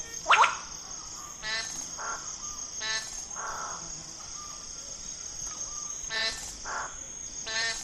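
Bird-of-paradise calling: one loud, harsh call sweeping downward just after the start, then a run of shorter ringing calls spaced about half a second to a few seconds apart. A steady high insect drone runs beneath.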